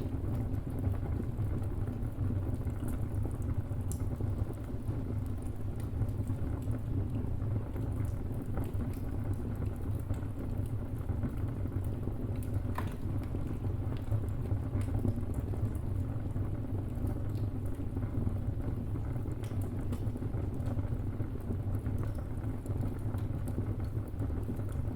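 Wood fire burning with a steady low rumble and scattered small crackles and pops, the sharpest pop about 13 seconds in.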